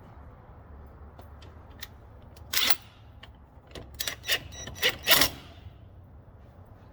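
Metal parts of a bushing removal tool clinking and knocking as it is fitted and its washers and nut are handled: one short knock, then a quick cluster of sharper clinks about four to five seconds in, one with a brief metallic ring.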